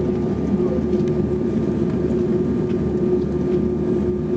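Steady cabin drone of an Airbus A330-200 moving on the ground, an even rumble with a constant hum running through it.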